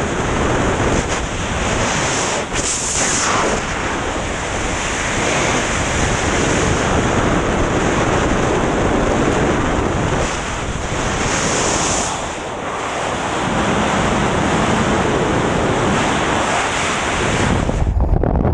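Freefall wind rushing over a helmet-mounted action camera's microphone: a loud, steady rush with slow swells. Near the end it changes to the lower, duller rumble of the jump aircraft at its open door.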